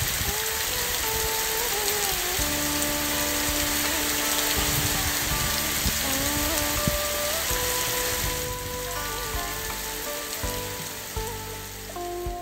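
Heavy rain pouring steadily, a dense even hiss, with a background music melody of held, stepping notes over it.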